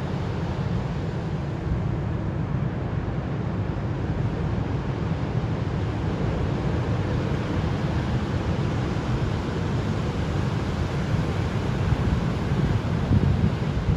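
Ocean surf breaking and washing up a sandy beach, with wind rumbling on the microphone. The wind gets louder near the end.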